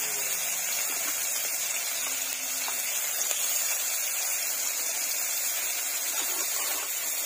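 Chopped onions and green chillies sizzling in hot oil in a kadai, a steady hiss.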